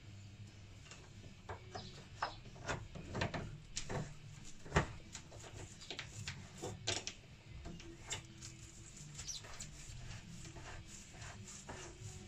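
Irregular light clicks and knocks from hands and small tools working at a shower tray as it is set in place, busiest in the first half with one sharp knock about five seconds in, over a low steady hum.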